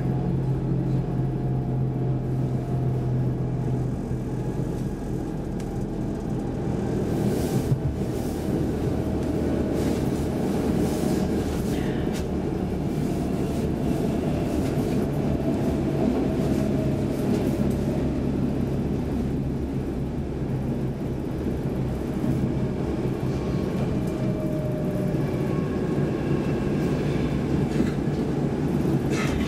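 Running noise inside a Saltsjöbanan C10/C11 electric commuter train car: a steady rumble of the wheels on the track, with a low hum that fades about four seconds in and a few sharp clicks partway through.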